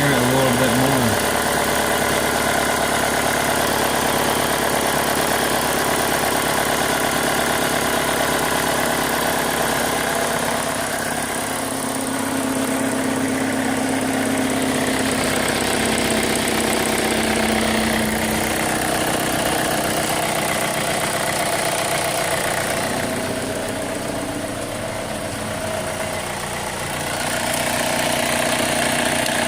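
2005 Chevy Cobalt's 2.2-litre four-cylinder engine idling steadily, its note shifting a little in loudness now and then.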